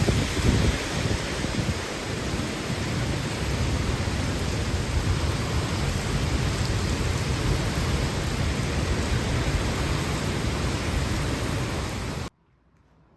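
Heavy typhoon rain pouring steadily, with gusts of wind rumbling on the microphone in the first second; the sound cuts off suddenly near the end.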